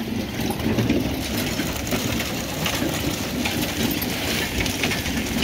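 Corn-harvesting machinery running, a steady engine sound with continuous mechanical clatter.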